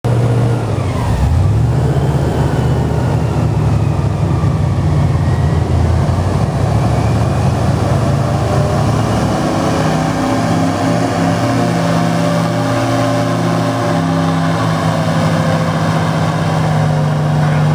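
Airboat engine and propeller running at speed, a loud steady drone. The pitch shifts and glides over the first few seconds, then settles into an even note from about halfway through.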